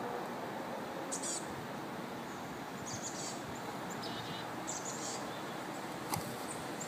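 Outdoor background hiss with small birds chirping in short high bursts several times, and a single sharp click about six seconds in.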